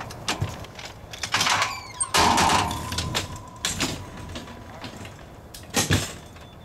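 Metal clanks and rattles of a wheeled ambulance stretcher being loaded into the back of an ambulance: a series of knocks, a louder stretch of rattling about two seconds in, and a sharp knock about six seconds in.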